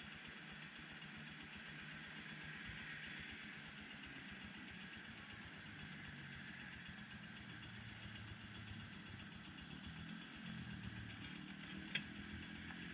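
An engine idling faintly and steadily, a little stronger near the end, with a single click shortly before it ends.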